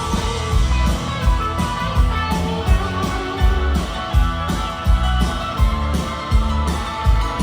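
Live rock band playing an instrumental break of the song: guitars over a steady drum beat, with no singing.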